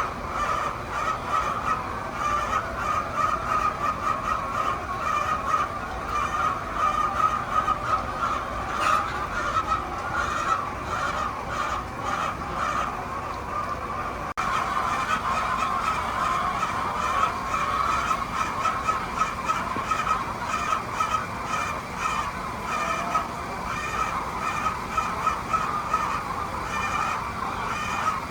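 A flock of laying hens clucking and squawking, many calls overlapping into a continuous din.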